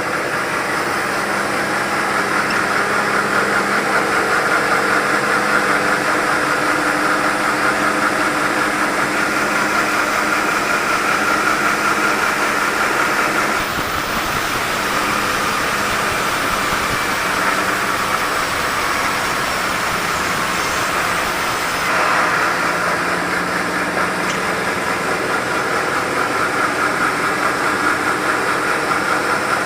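Sawmill saw running steadily while sawing mahogany logs: a steady machine hum under a higher, grainy whine. The sound shifts about 14 seconds in and again about 22 seconds in.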